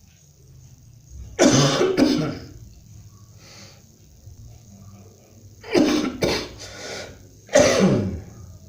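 A person coughing in short fits: two coughs about a second and a half in, two more around six seconds, and one more near the end. This is the coughing of an itchy, irritated throat.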